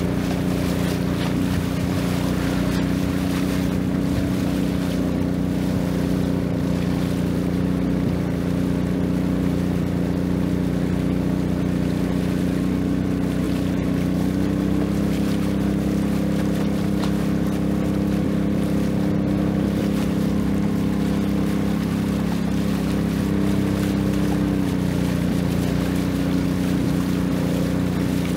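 Long-tail boat engine running steadily under way, its pitch rising slightly about halfway through and dropping back near the end, over a steady hiss.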